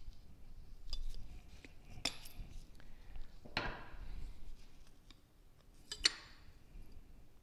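Scattered light metallic clinks and scrapes as the shaft of a QA1 70 Series racing shock is worked up out of the shock body, bringing the compression tube with it; the sharpest click comes about six seconds in.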